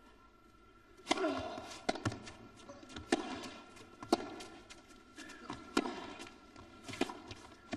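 Tennis serve and rally: a serve about a second in, then the ball struck by rackets and bouncing on an indoor court, with sharp hits roughly once a second.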